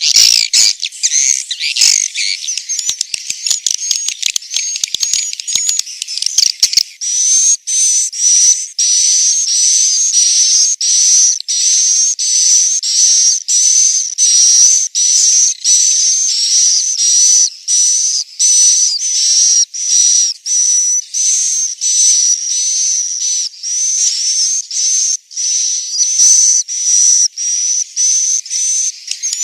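Edible-nest swiftlet calls: a dense twittering chatter, then from about 7 s in a steady run of short repeated chirps, roughly one and a half a second, each with a thin high whistle. It is the roosting ('inap') call that is played to lure swiftlets into a swiftlet house.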